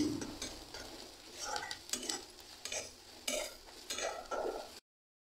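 A metal spatula stirs and scrapes onion and garlic paste frying in a metal kadai, in a run of short scraping strokes over a light sizzle. The sound cuts out to silence just before the end.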